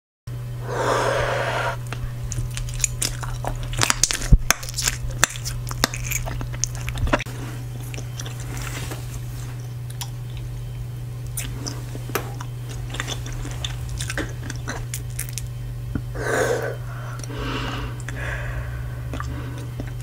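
Close-miked bubble gum chewing: wet smacking with a cluster of sharp pops and clicks in the first several seconds, then softer chewing. Breathy blowing as bubbles are inflated comes at the start and again a few seconds before the end, ending with a large bubble. A steady low hum runs underneath.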